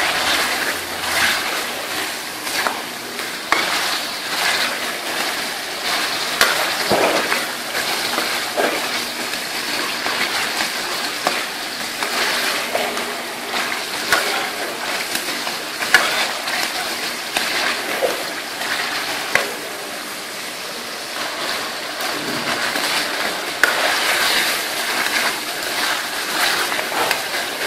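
Mutton pieces sizzling steadily as they fry in ghee in a steel kadai, being browned (bhuna), while a steel spatula stirs them, scraping and knocking against the pan with frequent sharp clicks.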